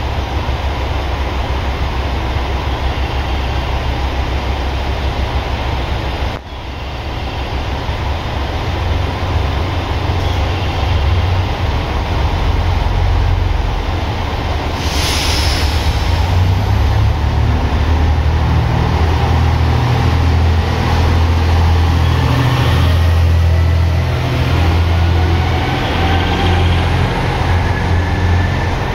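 Diesel railcar of the JR West KiHa 121/126 series, its engine running at the platform, then pulling away under power. There is a brief hiss about halfway through. From then on the engine grows louder, and rising whines climb as the train gathers speed.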